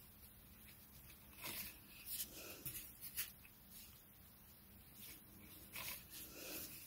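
Faint rubbing and rustling of thin waxed polyester macramé cord sliding between fingers as knots are tied and drawn taut, in a few short bursts with quiet between.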